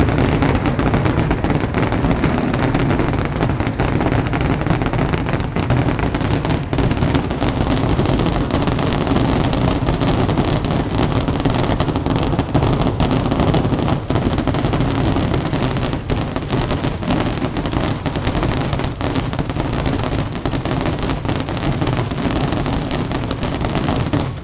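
Loud fireworks barrage: aerial shells bursting in rapid, overlapping succession, a continuous run of booms and crackles with no pause.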